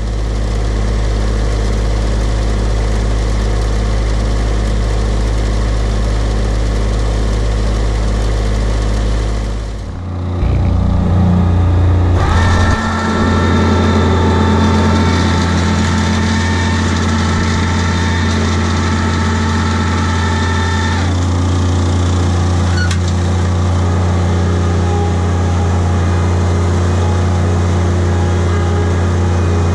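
Engine of a stand-on turf machine running steadily. About ten seconds in the sound changes to the engine heard up close from the machine as it drives along, with a steady high whine over it until about twenty seconds in.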